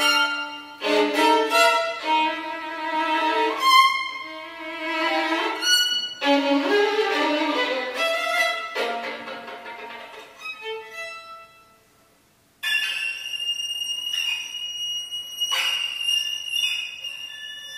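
Solo violin playing contemporary concert music: a busy run of rapidly changing notes that fades away to near silence about twelve seconds in, then a very high, thin sustained note that enters suddenly and is held.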